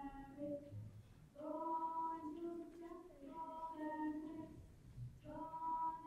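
Female voices singing a slow melody in long, held notes, with breaks between phrases about a second in and again about five seconds in.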